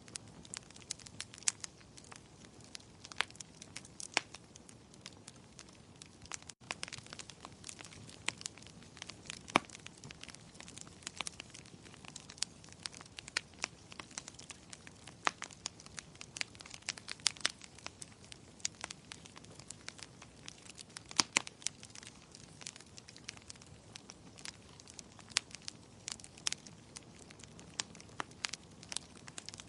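Wood fire crackling: many irregular sharp pops and snaps over a soft steady hiss, with a brief dropout about six and a half seconds in.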